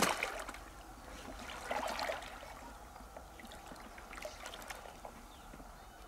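Shallow river water sloshing and splashing as a person wades and gropes through the riverbed with their hands for freshwater mussels. There is a louder splash at the start and another about two seconds in, then smaller dribbles and swishes.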